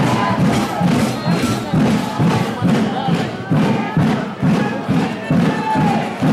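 Steady drum beat at about two beats a second under many voices shouting and chanting: a crowd cheering with drums.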